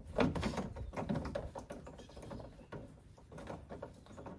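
Small clicks, scrapes and rattles of a socket and ratchet working out the screw in a plastic door-handle bezel, busiest and loudest in the first second or so, then sparser.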